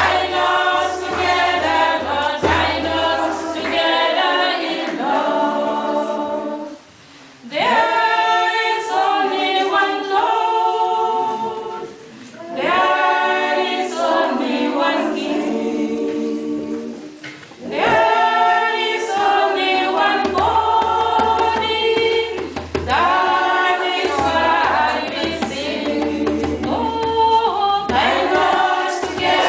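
A small group of women singing together a cappella, phrase by phrase, with brief breaks about seven, twelve and seventeen seconds in.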